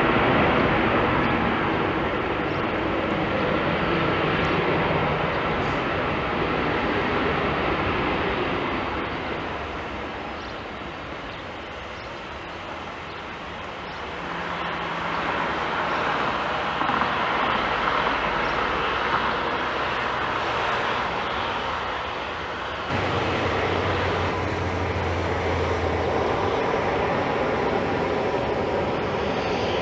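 Boeing 737-800's CFM56-7B jet engines running as the airliner rolls out along the runway after touchdown. It is a steady roar that dips, swells again as the plane passes closest, and shifts abruptly about two-thirds of the way through.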